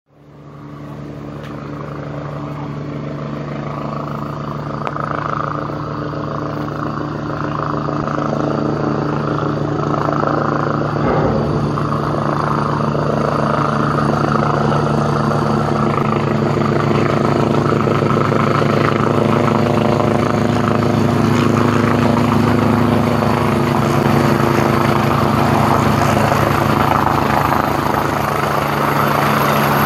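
Helicopter flying in toward a ship's deck, a steady mechanical drone of rotor and engine that grows louder over the first half and then holds steady as it comes close.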